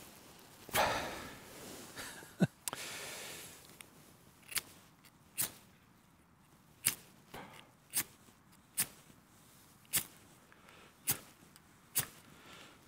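Steel striker scraped hard against a flint, about a dozen sharp strikes roughly one a second, the first couple drawn out into longer scrapes, striking sparks to light tinder.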